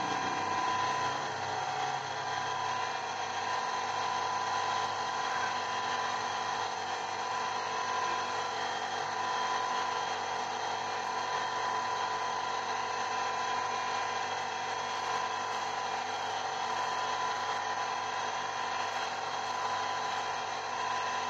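Electric motor of a lapidary grinding and polishing machine running steadily, a steady whine of several tones, while a hand-held gemstone is worked against the small spinning disc on its spindle.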